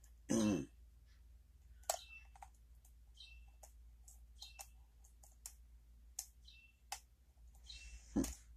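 Lock pick working the pins of a pin-tumbler challenge lock: a run of small, sharp, irregular metal clicks as the pins are set and tested under tension.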